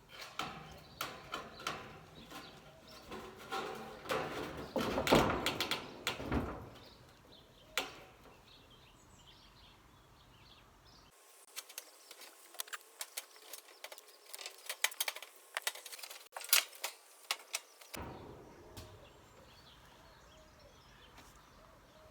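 Thin 0.5 mm steel box-profile cladding sheet being handled and offered up into place: irregular knocks, scrapes and rattles of the metal, loudest about five seconds in, then a run of sharp clicks and taps.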